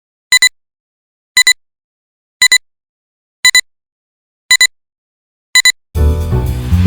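Electronic double beep, a high pure tone sounded six times about once a second with dead silence between. Music with drums and bass starts near the end.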